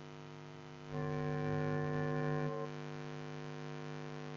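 Electrical mains hum on the recording: a steady buzz with many evenly spaced overtones. It grows louder about a second in and drops back to a lower steady level after about two and a half seconds.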